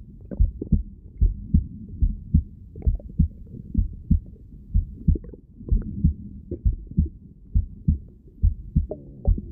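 Heartbeat heard through a stethoscope: a steady run of dull, low thumps, about two and a half a second, over a low rustling background.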